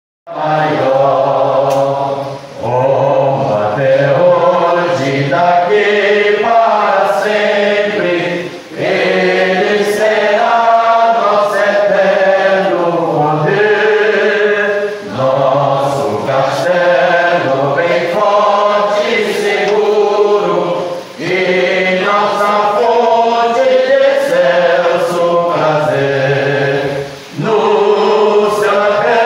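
A group of voices singing a hymn together, phrase by phrase, with a brief pause about every six seconds.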